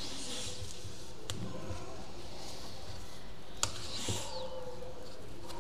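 Quiet bench handling while a capacitor is being desoldered from a circuit board: two sharp clicks, one about a second in and a louder one past the middle, over a steady faint background.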